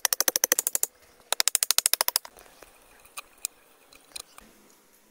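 A rapid run of sharp clicks, about fourteen a second, stopping under a second in, then a second similar run, followed by a few scattered single clicks.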